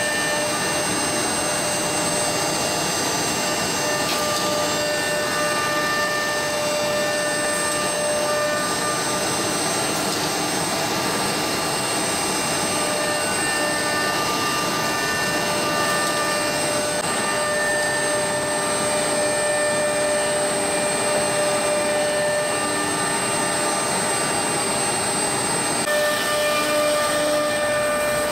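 CNC woodworking router on a furniture panel production line running: a steady rushing machine noise with several high steady whining tones that come and go slightly but never stop.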